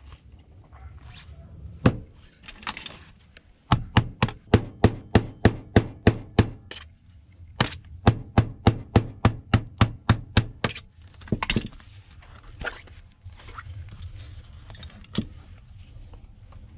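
A small tablet being struck over and over to knock its cover loose for teardown: two quick runs of sharp knocks, about four a second and each lasting about three seconds, followed by a few single knocks.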